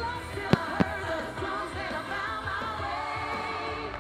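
Pop music with singing playing steadily, cut about half a second in by two sharp firework bangs in quick succession.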